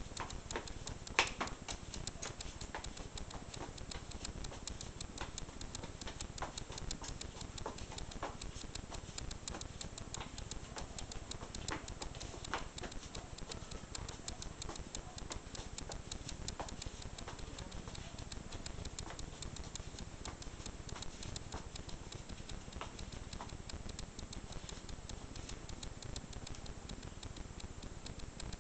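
A small comb raked fast and over and over through a boy's straight hair, making a quiet, continuous crackle of dense tiny clicks, with one sharper click about a second in. The combing is meant to charge the comb with static electricity.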